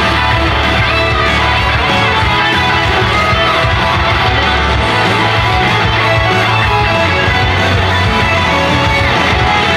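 An idol-group pop-rock song with strummed electric guitar and a steady bass, playing loud and continuous.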